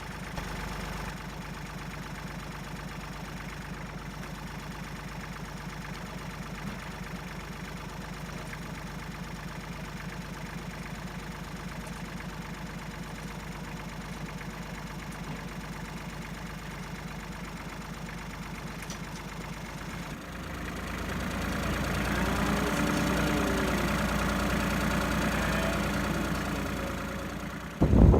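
An engine running steadily at idle. About two-thirds of the way through, the engine sound grows louder and fuller.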